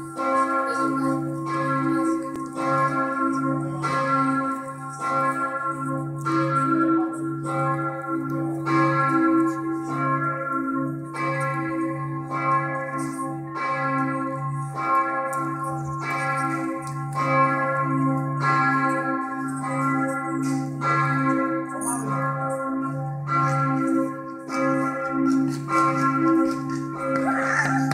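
Church bells of St. Emmeram's Cathedral ringing the six o'clock evening peal: several bells sounding together in steady strokes, a little more than one a second, over a deep lasting hum.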